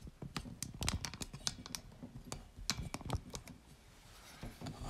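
Handling noise from a phone camera being moved and repositioned: a run of irregular clicks and taps, thickest in the first three seconds and sparser after.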